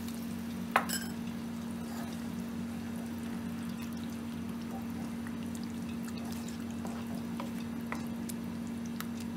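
Water-thinned gravy in a nonstick frying pan being stirred with a wooden spatula just after the water is poured in. The spatula knocks sharply on the pan about a second in, over a steady low hum.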